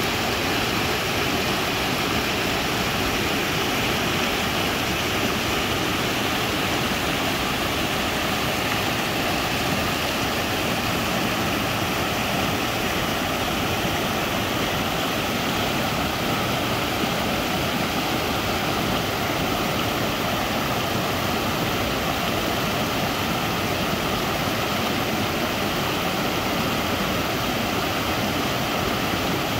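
Stream water rushing steadily over a small rocky cascade, an even, unbroken splashing.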